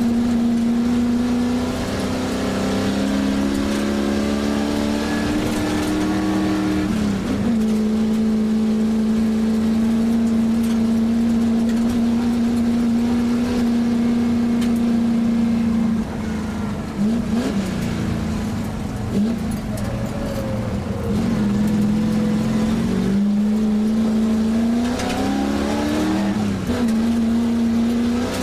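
1967 Shelby GT350's V8 engine at full race effort, heard from inside the cabin: it holds high revs on the straights, climbs in pitch and drops sharply at gear changes a few times, and wavers lower for a stretch past the middle as it comes off the throttle.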